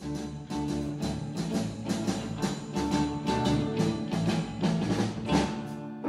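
A rock band playing live, with electric guitars, bass guitar and a drum kit coming in together at the start and keeping a steady beat.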